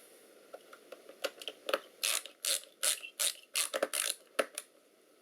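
Screwdriver turning the small screws of the laptop's shielding back in, a run of about ten short ratcheting clicks from about a second in until near the end.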